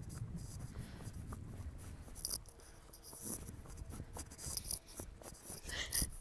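Faint rubbing and scraping with irregular small ticks from a handheld phone on a rider's walking horse, over a low rumble. A short higher-pitched sound comes near the end.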